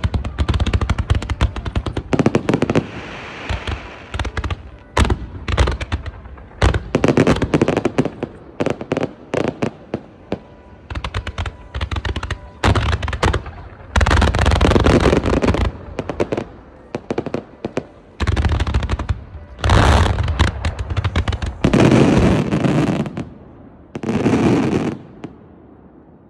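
Fireworks display: a fast string of sharp bangs from barrages of comets and rising stars, then several dense rolling volleys of rapid reports, each a second or two long, which die away near the end.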